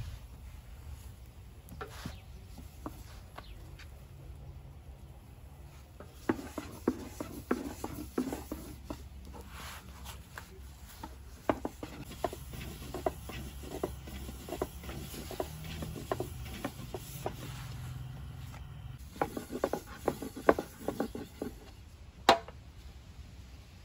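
Wooden spatula tapping and scraping against a convex iron sac griddle as flatbreads are turned, in scattered clusters of clicks over a low steady hum. One sharper wooden knock comes near the end.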